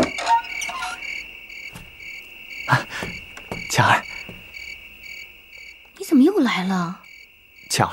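Crickets chirping steadily in a night ambience, with a few short knocks in the first few seconds and a brief wordless voice sound about six seconds in.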